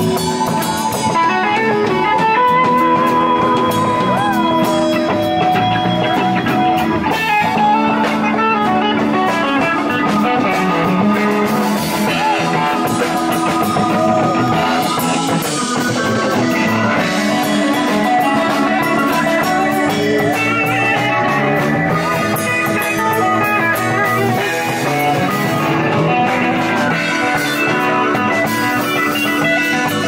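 Live blues-rock band playing a steady groove: lead electric guitar with bent notes over drum kit and bass.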